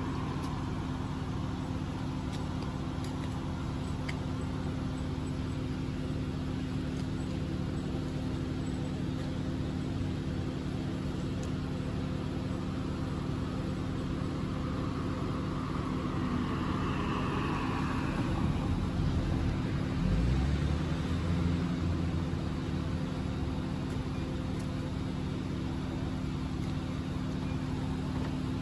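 Steady mechanical hum with a few fixed low tones, running evenly; a brief swell of higher sweeping sounds and a low knock come about two-thirds of the way through.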